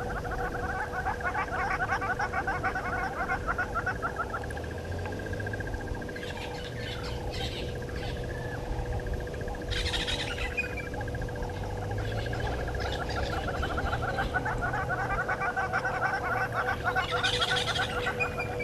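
African bush ambience: a continuous fast trilling chorus with a few brief bird calls about ten seconds in and again near the end, over a faint steady hum.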